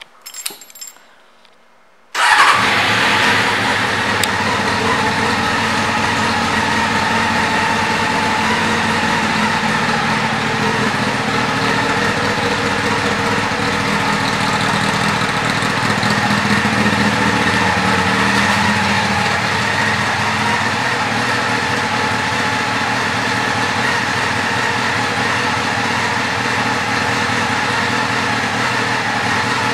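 A few faint clicks, then about two seconds in the 1998 Honda CBR600F3's inline-four engine starts suddenly and settles into a steady idle through an aftermarket exhaust.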